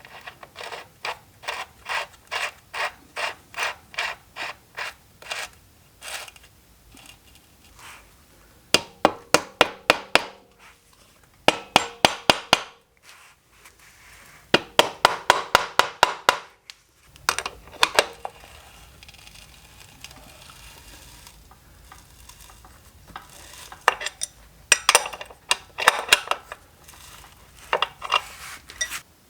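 Hand tools working on a motorcycle wheel: runs of quick, even metallic clicking strokes, several a second, stopping and starting in groups.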